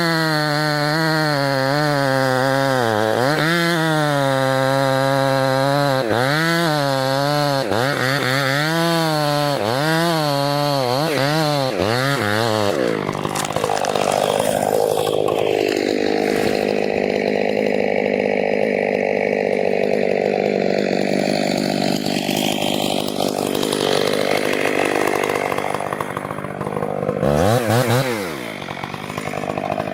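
Chainsaw engine cutting into a tree trunk, its pitch rising and falling as it works the cut. From about halfway it turns rougher and less clearly pitched as the bar sits deep in the wood, and near the end it drops briefly and revs back up.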